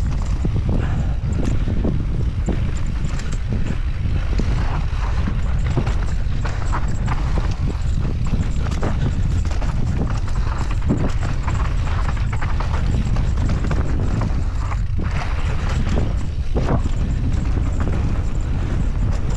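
Mountain bike descending a dry, rocky dirt trail: wind buffeting the camera microphone in a steady low rumble, with frequent short clatters as the tyres and bike hit stones and bumps.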